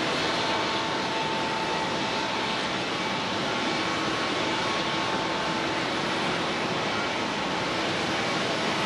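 Jet engine noise from a Boeing 737-800 airliner's CFM56 turbofans on its takeoff roll, heard as a steady noise.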